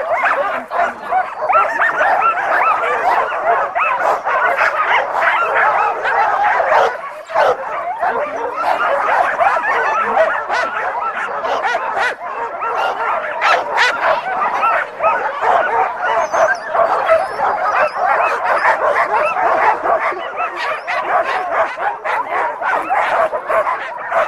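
A team of sled dogs barking together, many overlapping calls at once, with a short lull about seven seconds in.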